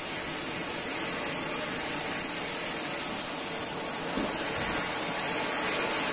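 Ground fountain firework spraying sparks with a steady hiss.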